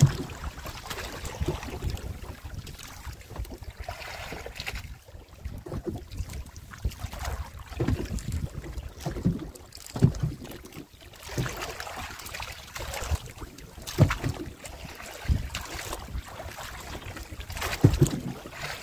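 Water sloshing against a small outrigger boat, with a handful of sharp knocks on the hull spread through it, the loudest at the very start and again about ten, fourteen and eighteen seconds in.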